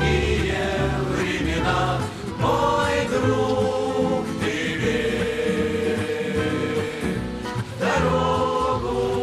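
Background music: a song with voices singing together over instrumental accompaniment and a steady bass line.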